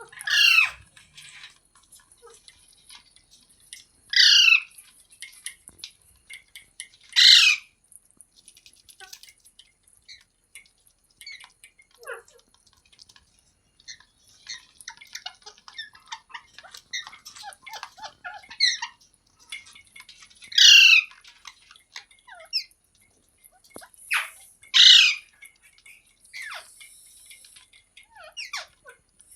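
Green parrot squawking: five loud, short, harsh calls that fall in pitch, spread through the clip. Softer chirps and chatter come in the middle stretch.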